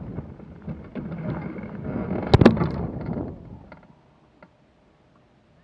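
Hang glider crashing through long wet grass, its control bar caught in the grass: dense rustling and buffeting that builds to two sharp impacts about two and a half seconds in as the glider tips over onto the hillside, then dies away to a few small clicks.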